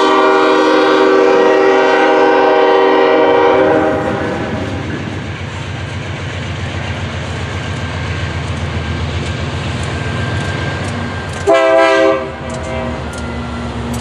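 A Ferromex freight train's diesel horn sounds a loud chord of several notes, ending about four seconds in. Then an approaching Ferromex diesel freight locomotive rumbles steadily. Later it gives one short horn blast, with a fainter tone trailing after it.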